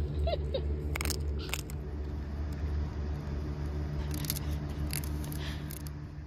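A steady low mechanical hum, with a few short sharp clicks over it, fading out near the end.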